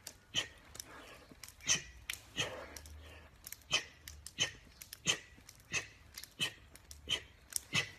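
A man breathing out sharply with each push-up, in a quick, even rhythm of about one breath every 0.7 s.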